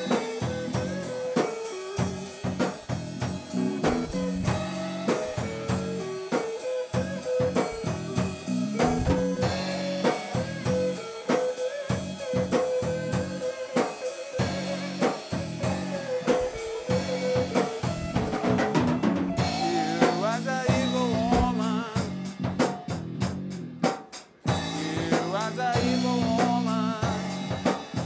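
Blues-rock band playing an instrumental break: drum kit with snare and bass drum keeping a steady beat under a bass line, and a lead melody of held, bent and wavering notes on top.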